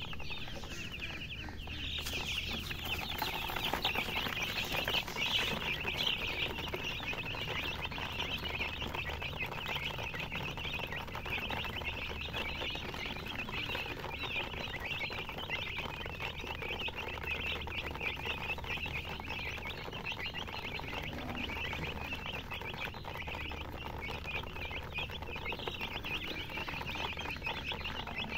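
A brood of baby chicks peeping all at once: a dense, continuous chorus of high, short chirps overlapping without pause.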